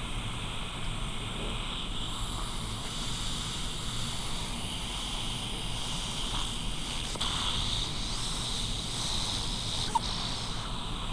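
A baby's small hiccups: a few faint short sounds, the clearest one sharp and brief near the end, over a steady background hiss and low hum.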